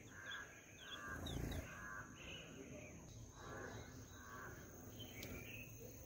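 Birds calling: several runs of short, harsh, raspy calls, with higher chirps between them, over a steady thin high-pitched tone. A low rumble about a second and a half in.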